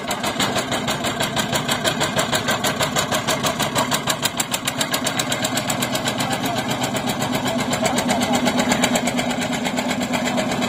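Engine of a small wooden river ferry boat running steadily under way, a rapid even chugging of about eight to ten beats a second.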